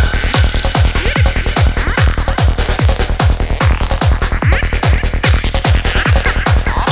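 Instrumental techno/trance track with a steady four-on-the-floor kick drum, about two deep, pitch-dropping thuds a second, under dense synths and hi-hats.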